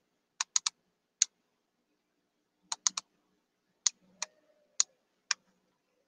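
Scattered sharp clicks of computer keys, about eleven over six seconds, a few coming in quick pairs and threes, while a document on screen is scrolled.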